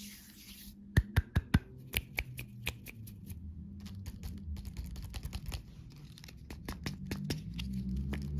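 Close-up handling noises: a run of sharp clicks and crackles, loudest in four quick clicks about a second in, over a low steady hum.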